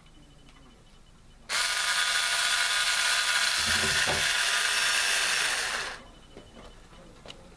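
Power drill-driver running in one steady spell of about four and a half seconds, starting and stopping abruptly, as it works a screw on a box fan's grill.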